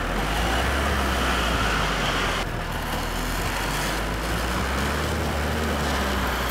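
Construction-vehicle engine noise: a steady, low diesel-type rumble with a hiss above it, standing in for the toy bulldozer at work.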